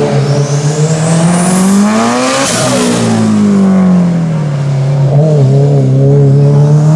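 Turbocharged Subaru Impreza hillclimb car at full throttle. The engine revs climb to a peak about two and a half seconds in, then fall away sharply, waver briefly about five seconds in, and climb again near the end.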